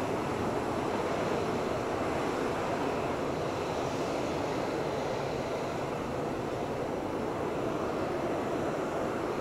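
Boeing 737-800's CFM56-7B turbofan engines running at taxi power as the airliner rolls slowly along the taxiway: a steady, even jet rush.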